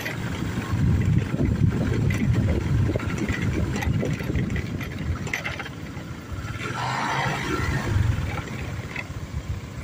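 A vehicle's engine running as it travels along, heard as a low, uneven rumble with wind rushing over the microphone.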